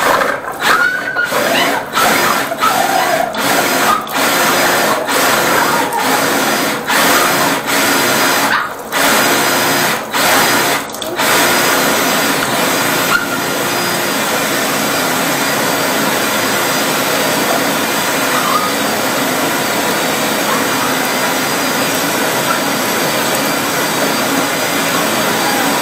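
Motorized drain-cleaning shaft machine running as its spinning shaft works through a blocked drain pipe. For about the first eleven seconds the noise keeps dipping and coming back in quick repeats. After that it runs steadily.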